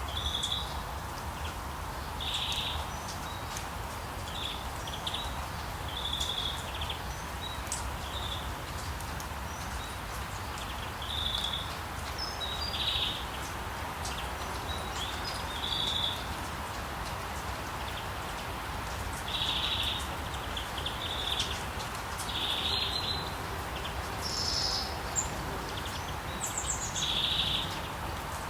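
Birds chirping in short repeated bursts every second or two, with some higher notes near the end, over a steady hiss of rain and a low rumble.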